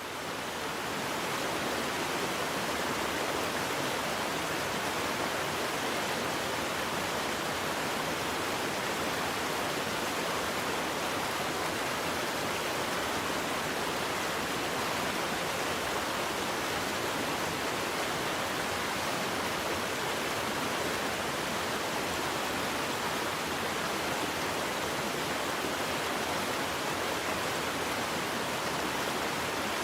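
Waterfall: a steady rush of falling water, fading in about a second in, then holding an even level.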